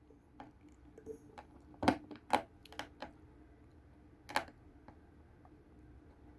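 Scattered small clicks and taps of a precision screwdriver working the screws inside an opened smartphone, irregular and faint, the sharpest a couple of seconds in and again past four seconds.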